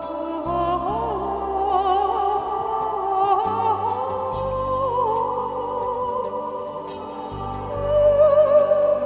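Background music: a slow melody of held notes with a marked vibrato, over sustained bass notes that change every few seconds.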